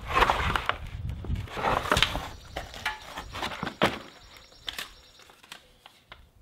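Cardboard and plastic wrapping crinkling and scraping as a small engine is turned around inside its shipping box, with a few sharp knocks. It dies down to faint scattered clicks after about four seconds.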